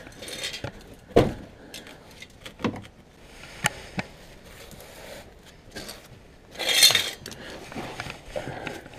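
Scattered light metal clinks and knocks of hand tools and bolts while an ATV's skid plate is being unbolted and worked loose, with one louder scrape near the end.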